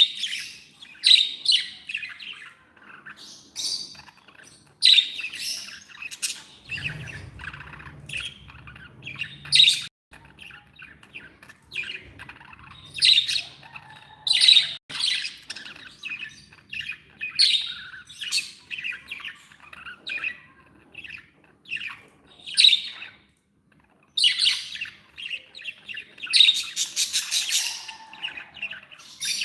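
Budgerigars chirping and squawking in quick, irregular calls, with a faint low rumble for a few seconds early on.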